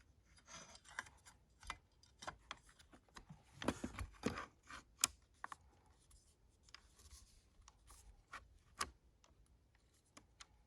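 Hands handling airsoft gear: scattered faint clicks, knocks and rubbing of plastic and metal parts, with a busier stretch of scraping and clicking about four seconds in and a few single sharp clicks later.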